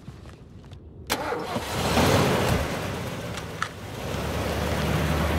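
A vehicle engine starts suddenly about a second in and keeps running, a steady low hum under a noisy rush that grows louder.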